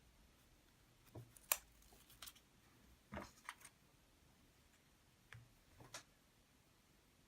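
Faint handling noise: a few scattered clicks and taps, the sharpest about a second and a half in and a small cluster around three seconds in, with near silence between them.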